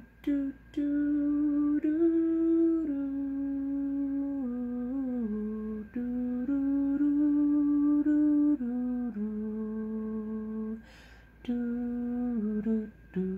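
A man humming a slow tune, holding each note for about a second and stepping up and down in pitch, with a couple of short breaks.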